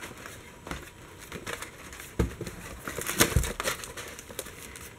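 A pop-up book page being turned: stiff paper pop-ups rustling and crinkling as they fold and unfold. There are scattered sharp taps and louder rustles about two and three seconds in.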